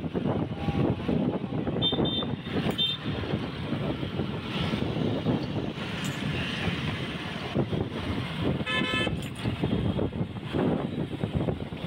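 Road traffic heard from a moving vehicle: a steady rush of engines, tyres and wind. Short high horn toots come about two and three seconds in, and a fuller car horn honks briefly about nine seconds in.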